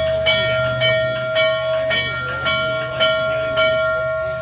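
Steam locomotive bell ringing steadily, about two strokes a second, as Norfolk & Western 611 eases up to couple; the last stroke comes shortly before the end and rings away.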